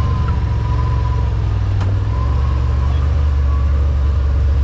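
Side-by-side UTV driving along a trail, its engine running at a steady low drone with a thin whine over it, and a single click about two seconds in.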